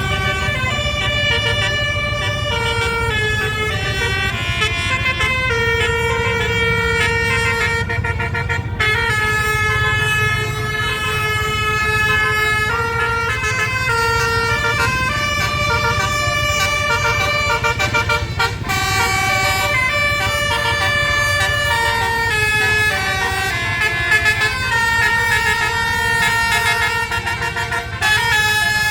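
A 12-note 'basuri' telolet bus horn playing a melody: a run of held notes stepping up and down in pitch, each lasting from about half a second to a couple of seconds, over a steady low hum.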